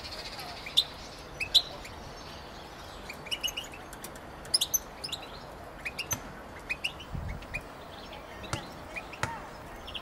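Caged European goldfinches chirping and twittering: short, sharp, high notes at irregular intervals, some in quick runs of two or three, with a few much louder notes among them.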